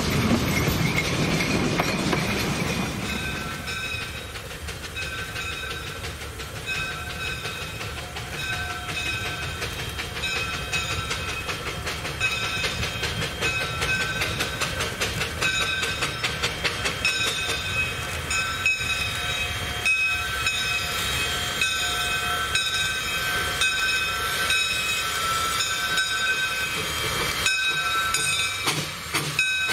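A passing coach rumbles low for the first three seconds. Then a two-foot gauge steam train draws slowly in, its wheels clicking over the rail joints, with steady high-pitched ringing tones through the rest.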